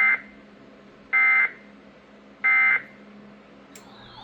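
Emergency Alert System end-of-message (NNNN) data bursts on NOAA Weather Radio: three short, harsh digital bursts about a second apart, the signal that closes the special marine warning. A warbling, siren-like tone starts just before the end.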